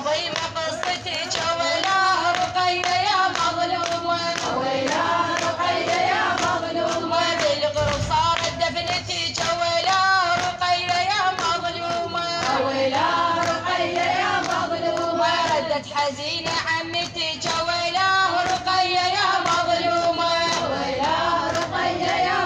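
A woman's voice chanting a Shia mourning poem unaccompanied, in long, wavering melodic lines. There is one brief low thump about eight seconds in.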